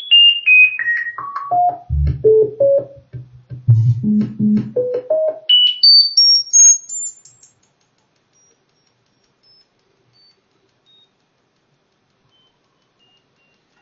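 A computer tone generator playing a quick run of short pure-tone beeps through the speakers, about three a second, each beep set by the frequency knob. The pitch steps down from a high whistle to a low hum, then climbs back up to a very high, thin tone, and the beeps stop about seven and a half seconds in.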